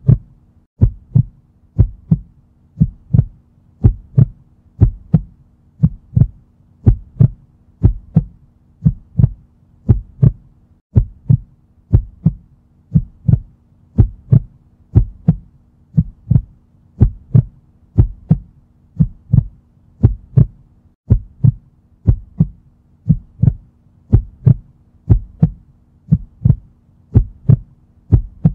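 Heartbeat sound effect: a steady rhythm of low double thumps (lub-dub), about one beat a second.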